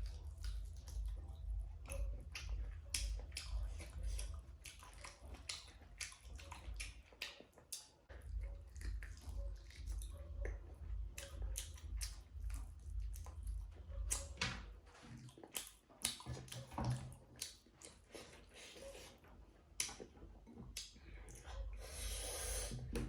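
Close-up eating sounds: chewing and wet mouth smacks and clicks as pork, rice and gundruk dal are eaten, under a low pulsing hum. A longer wet, slurping rustle near the end.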